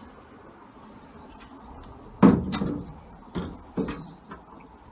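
Clunks and knocks from the louvred sheet-metal bonnet panel of a vintage car being handled: one sharp, loud knock about two seconds in, then a few smaller ones.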